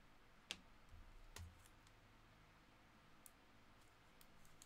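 Near silence with a few faint clicks: two sharper ones about half a second and a second and a half in, then lighter ticks toward the end.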